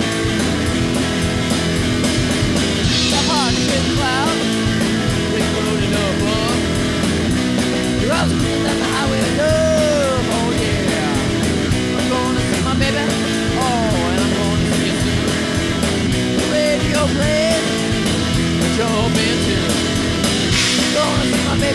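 Rock band playing: a drum kit and electric guitars, with a melody line of bending, wavering notes.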